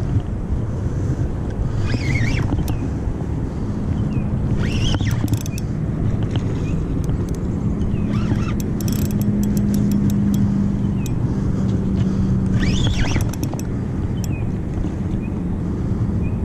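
Wind and water noise on an action camera's microphone under a low steady hum that grows louder in the middle, as a pencil popper is worked on a spinning reel. Four short chirping calls, rising and falling in pitch, come through about 2, 5, 8 and 13 seconds in.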